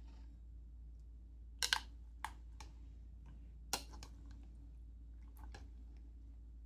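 Wooden chopsticks clicking against each other and the plastic jar while kimchi is picked out: a few scattered light clicks, two close together about two seconds in, over a low steady hum.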